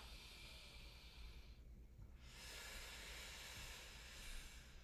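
Faint audible breathing of a woman during a knee-hover exercise: one breath ending about a second and a half in, then a longer, fuller breath from about two seconds in until near the end, timed to the movement.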